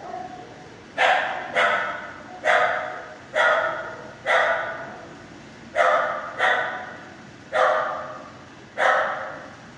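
Dogs barking in a shelter kennel room, about nine sharp barks roughly a second apart with a short gap about halfway. Each bark rings off the hard kennel walls. The barking comes from other dogs, while the dog in the picture chews her toy quietly.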